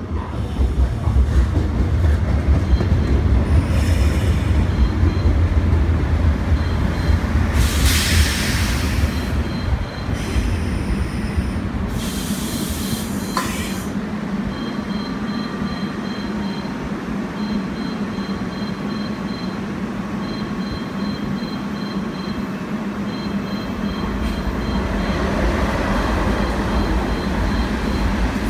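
Seoul Metro Line 1 resistor-controlled electric train rumbling into the platform and braking hard to a stop under a sudden emergency brake application, with loud hisses of air around eight and twelve seconds in. Once halted it stands with a steady hum from its equipment.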